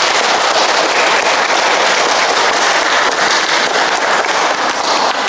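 Audience applause: many hands clapping together in a dense, steady patter.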